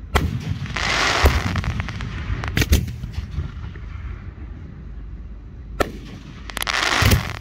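Aerial firework shells bursting: a sharp bang at the start, a hissing spell about a second in, two bangs close together about two and a half seconds in, another bang near six seconds, and a hiss swelling into further bangs near the end.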